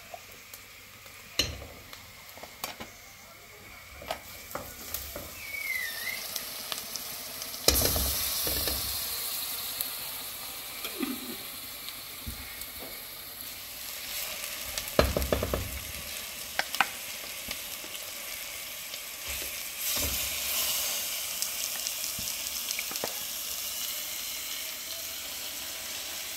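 Onions and tomato paste frying in oil in a steel pot, sizzling steadily, with wooden-spoon stirring and knocks against the pot. The sizzle flares up loudly about a third of the way in and twice more later, as raw meat pieces are dropped into the hot pot.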